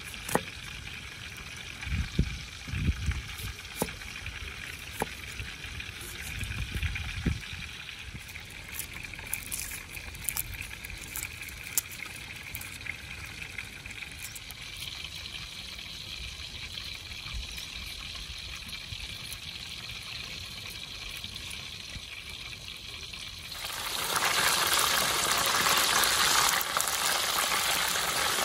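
A cleaver knocking dully against a wooden cutting board a few times, then light clicks from hand work. About 24 s in, loud sizzling starts and continues steadily as a whole fish deep-fries in hot oil in an aluminium pan.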